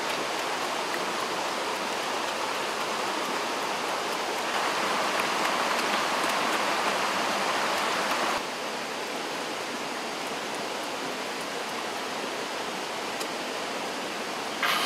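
Small rocky stream with water rushing over rocks: a steady rushing noise that grows louder for about four seconds near the middle.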